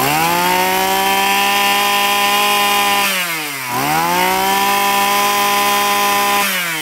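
A 26cc petrol brush cutter's engine on a test run, revved up and held at high revs. About three seconds in it drops briefly and revs up again, then falls back toward idle near the end.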